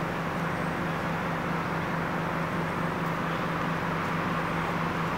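Air compressor running steadily, a constant motor hum with an even noisy whir over it.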